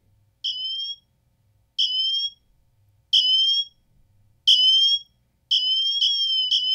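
Apple Watch Ultra's built-in emergency siren sounding: short high-pitched tones about every 1.3 seconds, each louder than the last, then from about five and a half seconds in a continuous, faster repeating pattern as the siren builds up.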